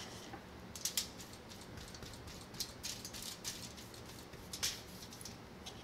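Faint, irregular scratchy strokes and small taps of a paintbrush working acrylic paint onto a bare wooden plank.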